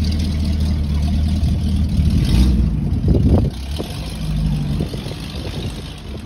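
Classic first-generation Ford Mustang coupe's engine idling steadily, then revving briefly about three seconds in as the car pulls away, and fading as it drives off.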